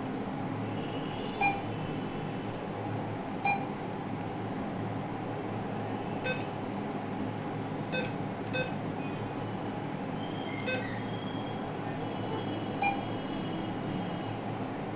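NCR touchscreen ATM beeping as its on-screen options are pressed: about seven short beeps spaced unevenly, over a steady low hum.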